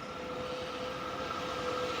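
Freight train approaching on the line, its running noise growing steadily louder, with a steady whine running through it.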